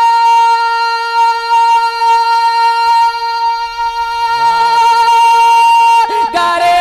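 Male naat reciter holding one long, steady high sung note through a PA system. Near the end he breaks into a moving melodic phrase. A second, lower voice joins briefly in the second half.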